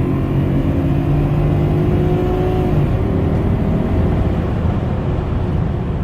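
BMW E32 7 Series petrol engine accelerating hard, its note rising steadily. About three seconds in the pitch drops as it shifts up a gear, then it climbs again.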